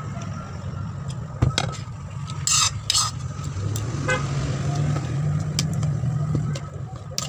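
A few short scrapes and clinks of a utensil against a metal cooking pot as noodles are scooped out. The two loudest come about two and a half and three seconds in, over a steady low hum.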